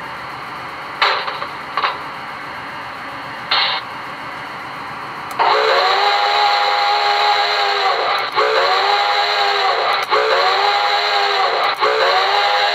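Steam locomotive sound effects from a QSI Maxx Traxx sound panel, played through a speaker. A steady steam hiss is broken by a few short bursts, then a chime steam whistle with several tones sounds four blasts about five seconds in, the first about three seconds long and the next three shorter.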